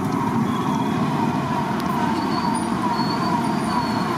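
Hot oil sizzling steadily in a large iron kadai as a batch of batter fritters deep-fries, with a faint falling chirp repeating about twice a second over it.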